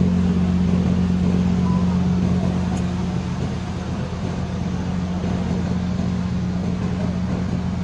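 Heavy cargo truck's diesel engine running at low, steady revs as the truck rolls slowly off the ferry, a deep even hum that eases a little about three seconds in.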